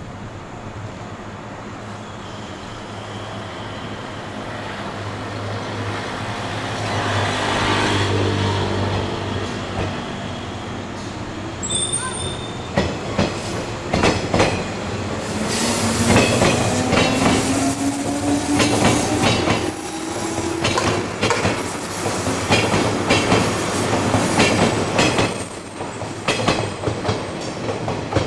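A 103 series electric commuter train pulling out and accelerating: its traction motors hum, the pitch gliding upward as it gathers speed, while the wheels clatter and click over the rail joints and squeal faintly. It grows louder as the cars pass.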